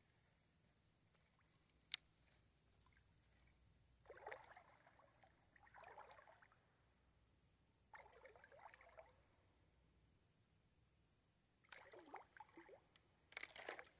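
Faint sloshing and lapping of water in a few short bursts, with a single sharp click about two seconds in.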